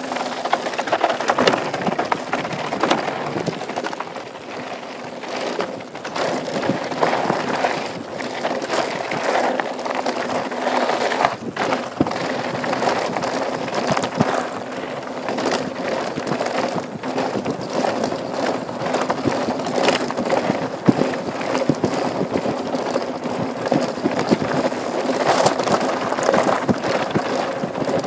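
Downhill mountain bike rolling fast over a rough dirt trail: tyres crunching over dirt and rocks, with a steady run of knocks and rattles from the bike.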